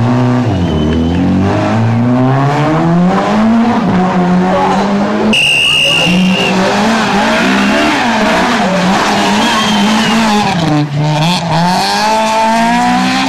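Rally car engines revving hard, the pitch climbing and dropping again and again through gear changes and lifts. About halfway through, a brief high steady tone sounds for around a second.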